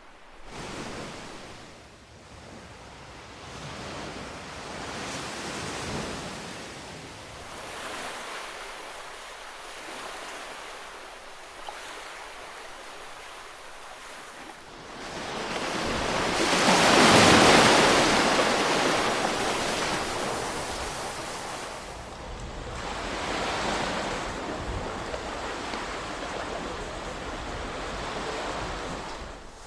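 Ocean waves washing in and drawing back, a hiss that swells and fades every few seconds. One bigger wave breaks loudest a little past the middle.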